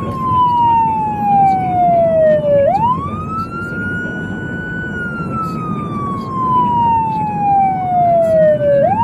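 Fire engine siren wailing: a tone that slides slowly down in pitch, then sweeps quickly back up, twice, about six seconds apart. Low steady road rumble underneath.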